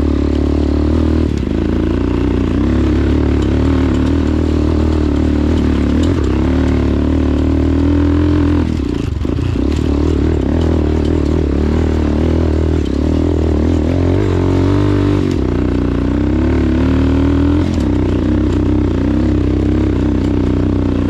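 Dirt bike's single engine pulling hard in second gear up a steep, rocky climb. The engine note wavers up and down as the throttle is worked over the rocks, easing off briefly about nine seconds in and again around fifteen seconds.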